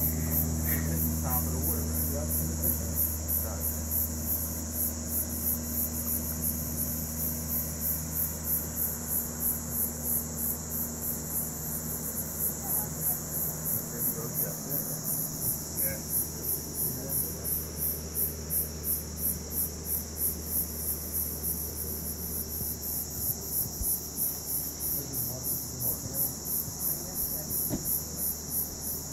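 Crickets chirping in a steady, even rhythm of a few chirps a second, over a low steady hum.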